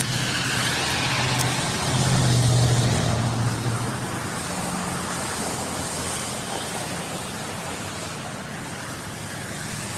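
Road traffic: a motor vehicle's engine hum and tyre noise swell about two to three seconds in, then slowly fade as it passes.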